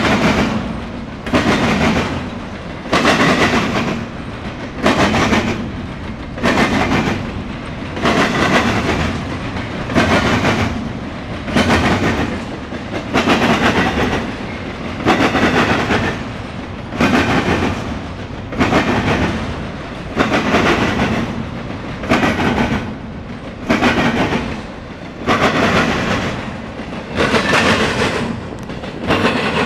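A double-stack intermodal freight train's well cars rolling past, their wheels clattering over the track in a steady rhythm with a loud burst about every second and a half, over a continuous rumble.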